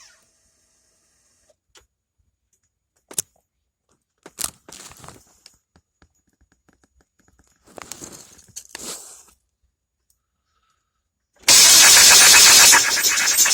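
A few sharp clicks and short rattles in a lull, then, about eleven seconds in, the starter cranks the Chevy Astro's 4.3-litre V6 with a fast, even pulsing; the engine turns over but does not start.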